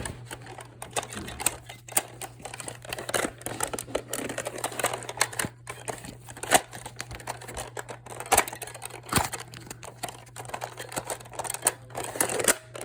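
Irregular clicks, knocks and rustling from people moving about and handling foam-dart blasters, with a few sharper knocks standing out.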